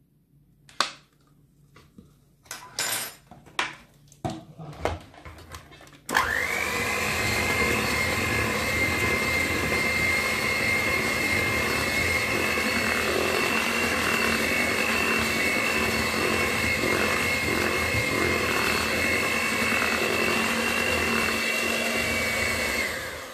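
Tefal electric hand mixer switching on about six seconds in, whining up to speed, then running steadily as its wire beaters whisk chocolate cake batter, and stopping near the end. A few light clicks and knocks come before it starts.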